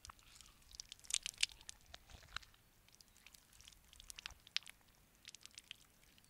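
A spatula stirring fried potato and onion chunks into beaten egg in a glass bowl. It makes an irregular run of wet squishes and sharp clicks, thickest and loudest about a second in.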